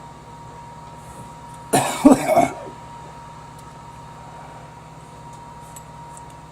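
A man coughing: one short burst of coughing about two seconds in, over a faint steady hum with a thin high tone.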